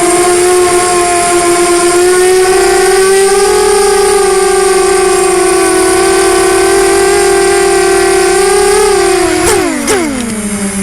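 Electric motors and propellers of a 250-size FPV racing quadcopter (Storm SRD250 Pro with Gemfan 5045 bullnose props) whining steadily at a nearly constant pitch. About nine and a half seconds in come two sharp knocks half a second apart, and the whine drops quickly to a lower, steady pitch.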